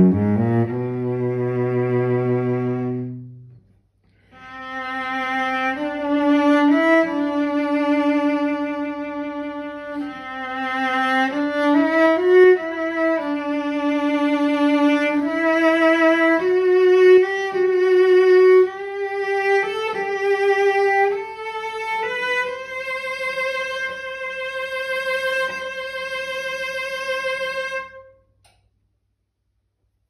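Solo Tyrolean cello of about 1845, spruce top and flamed-maple back and ribs, played with the bow. A low held note ends after about three and a half seconds; after a short pause a slow melody with vibrato climbs step by step and ends on a long held high note that stops shortly before the end.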